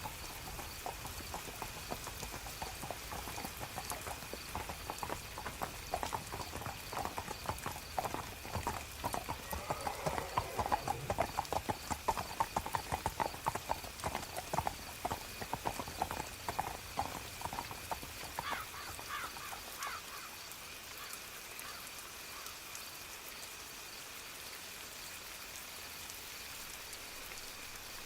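Horse hooves clip-clopping as a horse passes by, growing louder toward the middle and fading out about two-thirds of the way through, over a steady hiss of soft rain.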